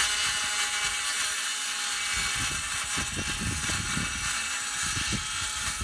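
Handheld circular saw cutting lengthwise through a wooden sheet, running with a steady whine and a dense rasp of the blade in the wood.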